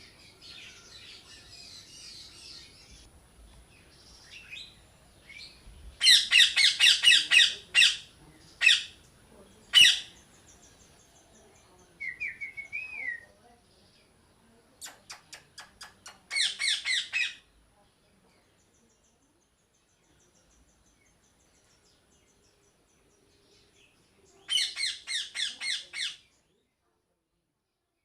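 Parrot squawking in runs of quick harsh calls, about five to six a second, in three loud bouts with a few single calls and a short warbling whistle between them. Faint bird chatter comes before the first bout.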